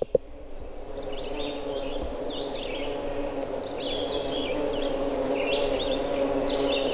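Many bumblebees foraging in a tree in bloom, making a constant hum like being in the middle of a hive, which swells over the first second or so and then holds steady. Songbirds chirp repeatedly over the hum.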